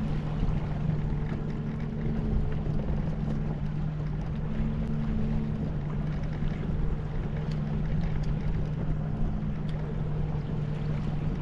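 Boat motor running steadily at slow trolling speed, a low even hum with a second tone that comes and goes every second or two, over wind and water noise.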